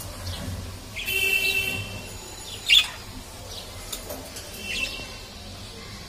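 Pet budgerigars chirping: a held call of just under a second starting about a second in, then one short, sharp chirp near the middle, the loudest sound, followed by a few fainter short chirps.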